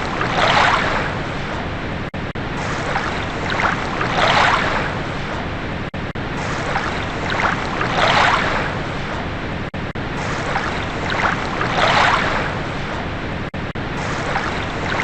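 Waves washing in steadily, a louder swell of surf rising and falling about every four seconds, four times over.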